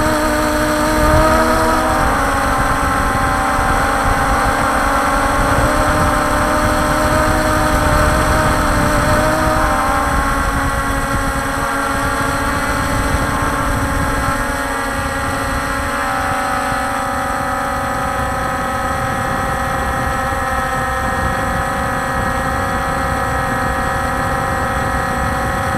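Walkera Scout X4 quadcopter's motors and propellers whining steadily in flight, heard from the drone's own onboard camera, over a low rumble. The pitch of the whine shifts a few times as the motor speeds change, most clearly around ten and sixteen seconds in.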